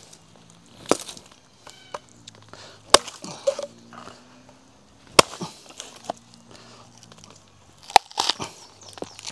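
A vakkathi (Kerala billhook) chopping into the husk of a young coconut to open it: four sharp chops a couple of seconds apart, with a few lighter knocks between them.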